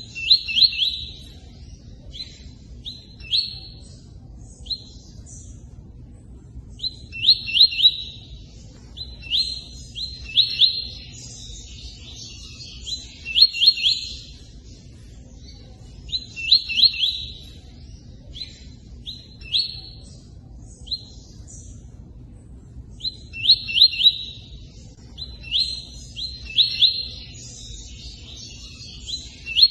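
Bird known in Brazil as the tui-tui singing its 'cortando' song: short bursts of two to four quick, falling whistled notes, repeated with brief pauses between them, over the steady rush of running water.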